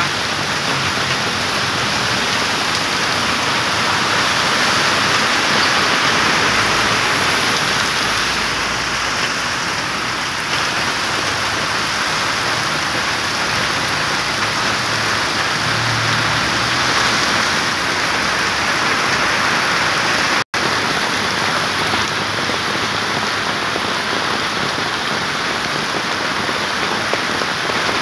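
Heavy tropical downpour: a loud, steady hiss of rain pounding a flooded road, with passing cars swishing through the standing water. The sound drops out for an instant about two-thirds of the way through.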